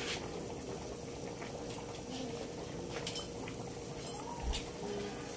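Pot of pork nilaga broth boiling steadily: an even bubbling with a few small pops. A faint steady hum runs underneath.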